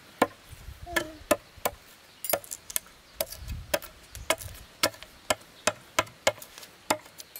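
A steady run of light, sharp taps or knocks, about two to three a second, like something small and hard being struck over and over.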